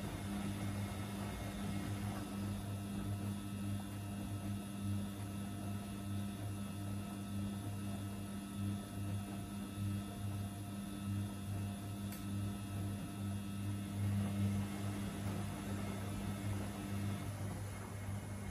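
Samsung and Gorenje front-loading washing machines running side by side in their wash cycles, drums turning bulky, sudsy loads, with a steady motor hum that pulses slightly. A fainter, higher whine stops shortly before the end.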